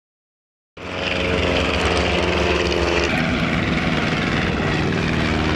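Propeller piston engines of First World War–style biplanes droning overhead in a steady run. The sound starts abruptly about a second in and changes character about three seconds in.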